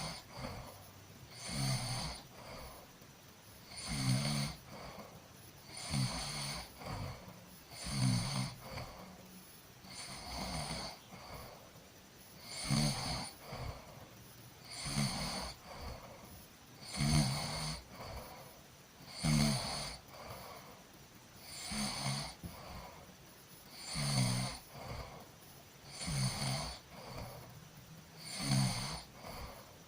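A person snoring in sleep at an even rhythm, about one snore every two seconds, each a low vibrating snore with an airy breath hiss over it.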